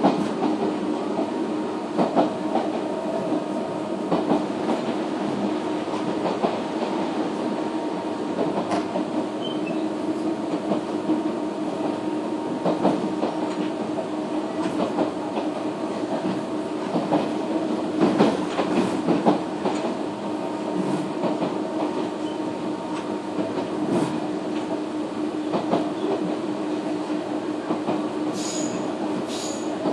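Interior running sound of a Nishitetsu 313 series car above its cardan-drive motor bogie: a steady motor and gear hum, with the wheels clacking over rail joints every few seconds. Near the end come three brief high wheel squeals.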